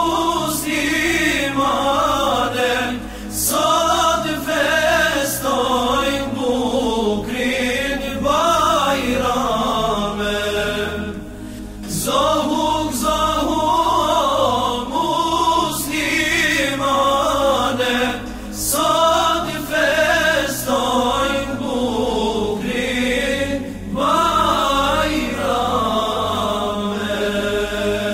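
Music: a group of voices chanting a melody together in phrases over a low sustained backing that shifts pitch every few seconds.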